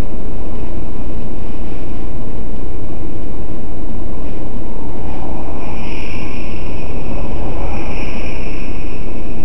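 Loud, steady rumbling noise inside a stopped car, recorded by a dashcam microphone. A car passing close by adds a brief rise in the noise about six to eight seconds in.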